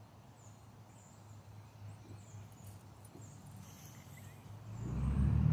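Quiet outdoor ambience with faint, scattered high chirps, then a motor vehicle approaching about four and a half seconds in, its low engine sound growing steadily louder.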